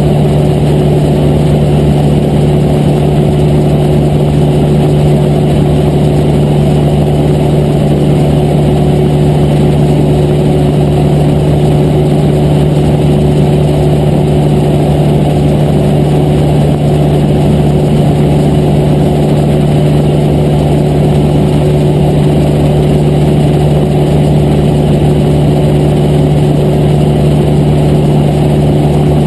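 Cessna 152's four-cylinder Lycoming O-235 engine and propeller running steadily at cruise power, heard loud inside the cockpit, with a constant low drone.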